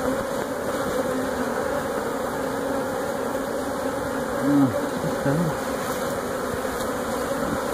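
Honeybees of a wild colony buzzing steadily as a dense hum around their comb as it is being cut out, the colony disturbed and in flight. The buzz swells briefly about halfway through.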